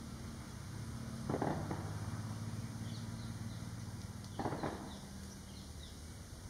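Outdoor ambience with a low steady hum, two short thuds about a second and a half apart from the first to the second, and faint small-bird chirps in the background from about halfway through.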